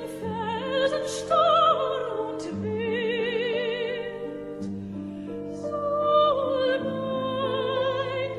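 Background music: an operatic voice singing long notes with wide vibrato over sustained low accompaniment.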